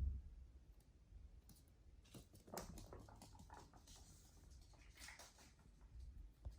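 Guinea pigs chewing beet leaves: faint crunching and leaf rustling in quick clicks from about two seconds in, after a low thump at the start.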